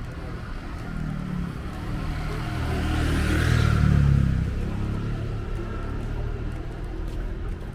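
A car driving past, its engine rumble and tyre hiss swelling to a peak about three and a half seconds in, then fading away.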